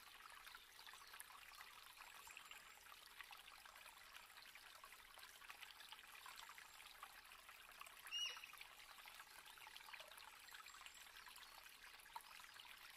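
Near silence: faint room tone with light crackling, and one brief high squeak about eight seconds in.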